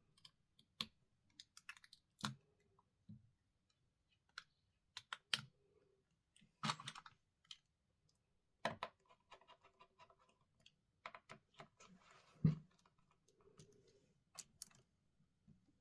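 Irregular small clicks and taps of tweezers and small smartphone parts being handled and fitted into a phone's frame, with a louder knock about twelve and a half seconds in.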